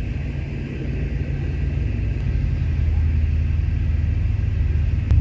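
Mercedes-AMG C63 S twin-turbo V8 with an ARMYTRIX aftermarket exhaust idling with a steady low rumble as the car creeps out of the garage.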